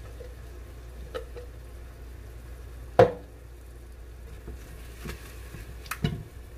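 Kitchen handling sounds: ginger-garlic paste is tipped from a glass jar into a pot and then stirred in with a silicone spatula, giving a few light taps and scrapes. One sharp knock about three seconds in rings briefly. A steady low hum runs underneath.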